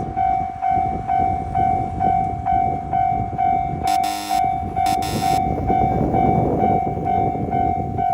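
Japanese railway level-crossing alarm ringing its repeating electronic bell about twice a second, over the rumble of a passing train. Two short train-horn blasts sound about four and five seconds in.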